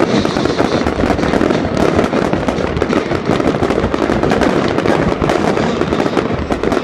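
Fireworks going off in a dense, continuous barrage of bangs and crackling, one burst overlapping the next.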